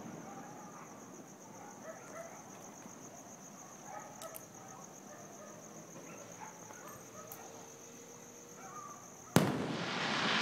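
A single loud firework shell bursting about nine seconds in, with a sudden bang followed by a wash of noise that fades over several seconds. Before it, only faint scattered sounds and a steady high-pitched whine.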